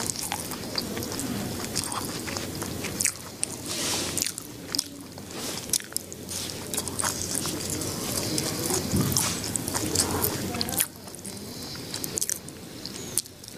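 A person chewing and biting food, with many small crisp crunches.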